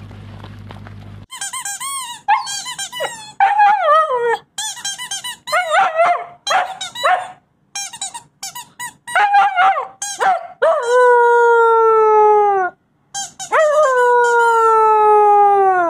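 Wolfdog puppy vocalising: a string of short whines and yips that rise and fall in pitch, then two long howls, each a couple of seconds long and sliding slightly downward in pitch.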